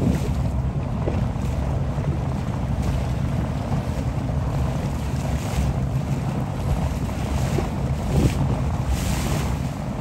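Wind buffeting the microphone in a steady low rumble, with choppy water splashing and hissing now and then.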